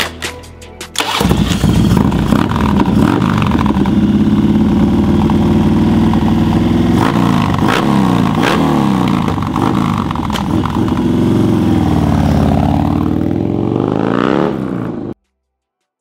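Harley-Davidson FXR's V-twin engine starting: it catches about a second in and runs loud, with a few throttle blips and a longer rev that dips and then climbs near the end, before the sound stops suddenly.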